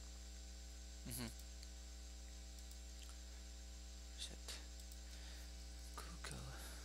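Steady electrical mains hum in the recording, with a couple of faint clicks about four seconds in. A man's voice makes two brief low mumbles, about a second in and again near the end.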